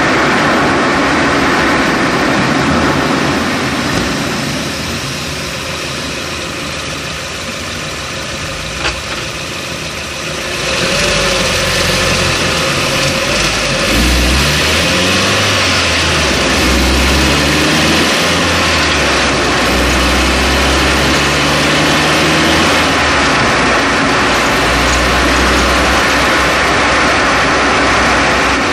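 Road and tyre noise with the car's engine, heard from down at the right front strut of a 2011 Chevrolet Cruze while driving. It quietens for a few seconds, with one sharp knock about nine seconds in, then picks up again as the engine note rises and falls with the car gathering speed.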